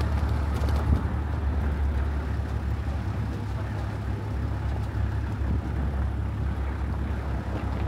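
Vehicle driving along a rough dirt track: a steady low engine rumble with tyre and road noise.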